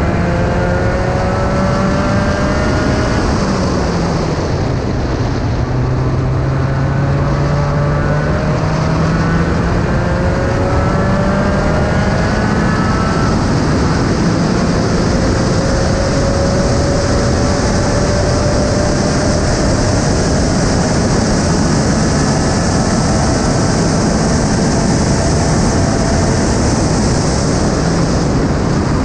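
Spec Racer Ford (SRF3) race car at speed, heard from the open cockpit: the engine note climbs several times and drops back between, as the car accelerates and slows through the corners, over a constant rush of wind and road noise.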